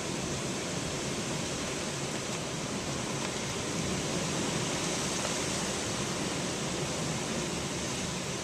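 Steady, even rushing noise of a hurricane storm, with no gusts or breaks.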